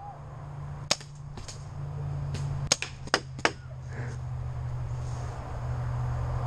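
Paintball guns firing: about half a dozen sharp pops in the first three and a half seconds, the loudest four spread between about one and three and a half seconds in, over a steady low hum.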